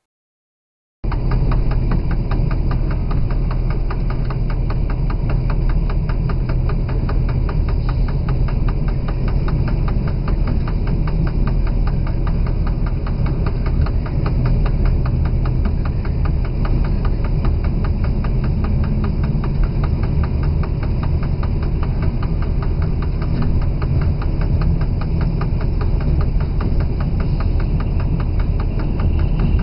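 Diesel locomotive engine running steadily, heard from inside the driver's cab as the locomotive moves along the track, with a deep hum and a fast, even pulse. It starts abruptly about a second in.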